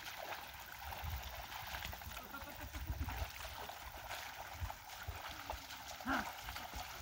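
Muddy water sloshing and splashing as a pair of oxen drag a wooden levelling board through a flooded rice paddy, with a short voice call about six seconds in.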